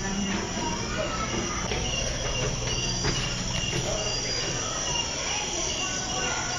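Insect chirping in a rainforest ambience: short high chirps repeating over and over above a steady low hum.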